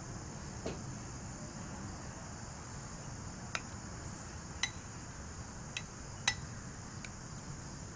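About five light clinks of a spoon against a mixing bowl as mayonnaise is stirred into a mushroom and cheese mixture, over a steady high chirring of evening insects.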